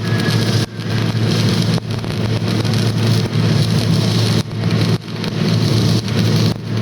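Electric arc welding: a steady crackling hiss over a low electrical hum, with the arc breaking off briefly about six times and striking back each time.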